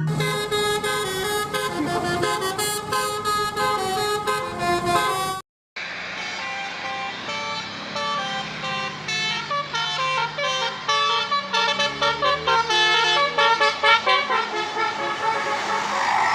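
Multi-tone 'telolet' (Basuri) bus horn playing a quick tune of changing notes, cut off abruptly about five and a half seconds in and starting again a moment later.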